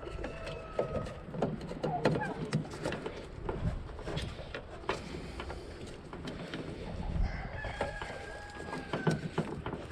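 A rooster crowing in the background twice, a short call near the start and a longer held one near the end, over small clicks and knocks of a headlight bulb and its socket being handled and twisted into the housing.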